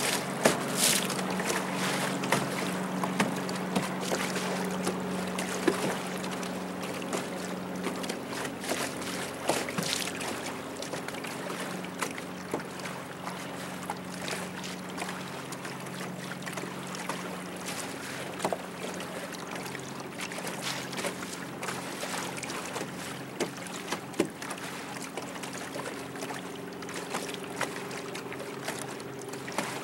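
Boat motor running with a steady hum as the boat moves across open water, with short splashes of water against the hull and wind noise on the microphone.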